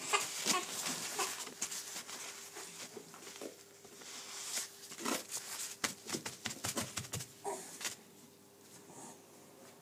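Irregular clicks, rustles and light knocks of plastic-gloved hands working close to the microphone, with a cluster of soft thumps about six to seven seconds in, over a faint steady hum.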